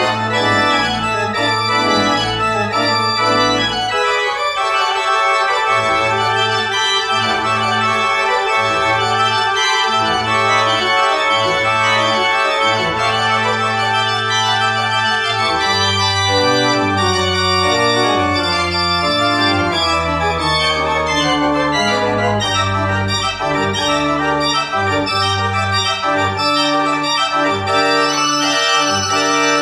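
Two-manual church organ playing sustained full chords over long held bass notes; from about halfway through the bass line moves more quickly beneath the chords.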